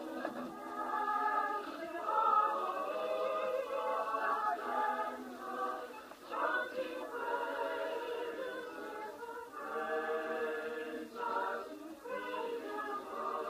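Mixed choir of women's and men's voices singing, with short breaks between phrases. It sounds thin, with no bass, as if played back through a screen's speaker.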